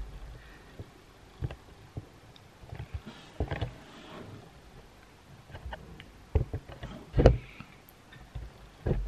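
Scattered soft knocks and thumps close to the microphone, the loudest a pair about six and seven seconds in, over low room noise.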